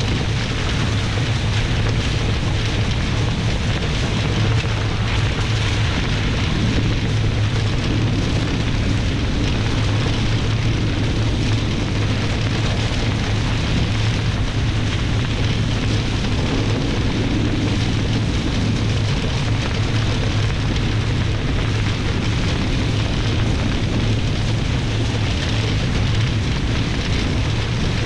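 Steady rush of wind and water spray from a Nacra 20 racing catamaran sailing fast downwind, with a constant low rumble underneath.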